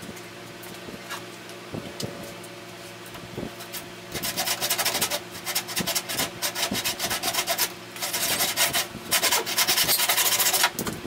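A handsaw cuts through the end of a 2x4 to trim it flush. For about four seconds there are only a few light knocks as the saw is set against the wood. Then rapid back-and-forth saw strokes begin and carry on to the end, over a steady low hum.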